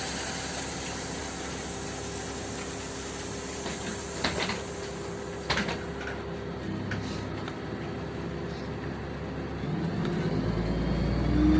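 LiAZ-5292.65 city bus engine idling steadily, heard from inside the passenger cabin, with a few sharp knocks and clicks around the middle. Near the end the engine works harder and the rumble grows louder as the bus pulls away.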